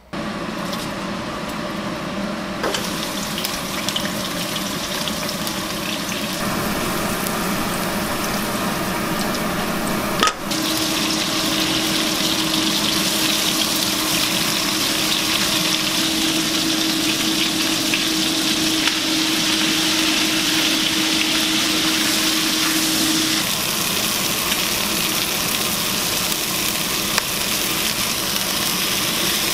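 Catfish pieces, then catfish with eggplant, frying in hot oil in a wok: a steady sizzle.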